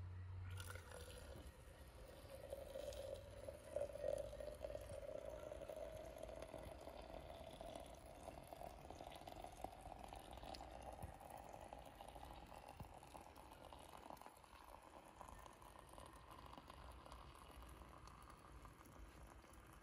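Hot water running from a samovar's tap into a glass French press. It is a faint, steady pour whose pitch rises slowly as the press fills.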